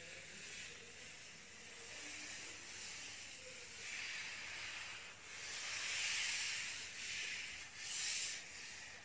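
Hand sweeping and rubbing sand across a floor, a gritty hiss that swells in several strokes, loudest in the middle and near the end.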